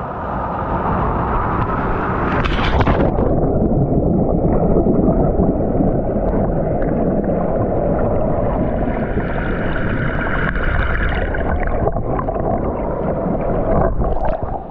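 Stream water rushing and gurgling steadily, close to the microphone.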